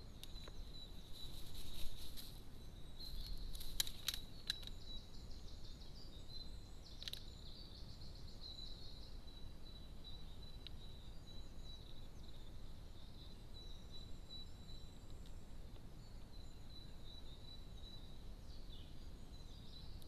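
Quiet garden ambience under a steady high-pitched whine, with a few short flurries of wing flutters and sharp taps in the first five seconds and another tap about seven seconds in, as birds come and go on a plastic feeder tray.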